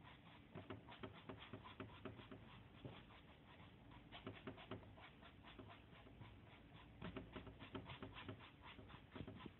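Faint, quick scratching strokes of a paintbrush working a gritty, sand-filled decorative wall coating across a panel, several strokes a second.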